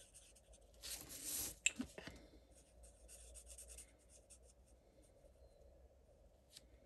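Alcohol marker tip stroking across cardstock while colouring, with faint scratchy strokes. A brief louder rustle comes about a second in, followed by a couple of light clicks.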